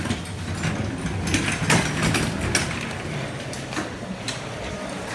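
Irregular clatter and knocks of luggage being moved, with a low rumble that fits a wheeled case rolling over a hard floor.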